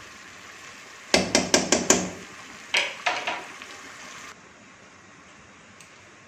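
A slotted spatula knocking against the side of a nonstick frying pan of korma: a quick run of about six sharp taps about a second in, then two more near three seconds. Under them is a low hiss of the simmering curry, which cuts off about four seconds in.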